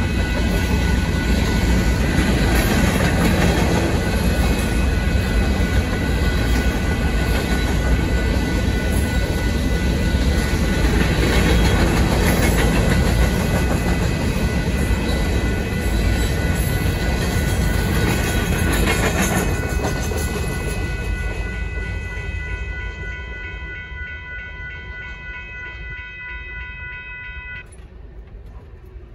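A freight train of covered hopper cars rolling through a grade crossing, with the crossing bells ringing steadily over it. The train noise fades after about twenty seconds as the last cars pass, and the bells stop shortly before the end.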